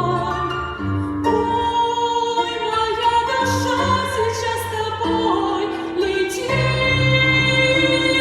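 Music: a solo voice singing long held notes with vibrato in a classical, operatic style over an instrumental accompaniment.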